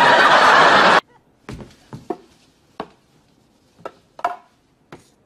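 Studio audience laughing, cut off sharply about a second in. Then a run of light, scattered clicks and small clinks, about eight in all, from objects being handled on a kitchen counter.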